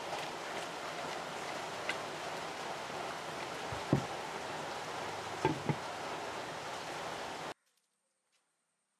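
Steady monsoon rain falling, with a few drips, and a few low knocks as a clay pot is set down on a wooden table. The sound cuts off suddenly about three-quarters of the way through.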